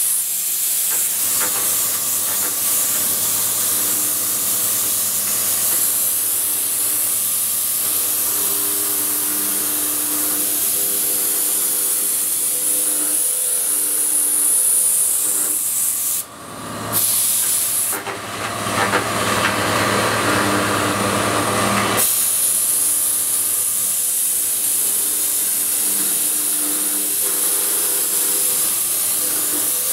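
Bridgeport 4-axis CNC mill with its cutter spinning through a laminated wood plinth. The sound is a steady loud hiss with faint humming tones from the spindle. It drops out briefly about sixteen seconds in.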